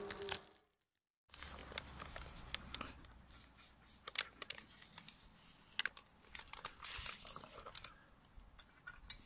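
Brown paper bag crinkling and rustling in the hands, with scattered sharp crackles, as dried potato flakes are poured from it into a camping pot.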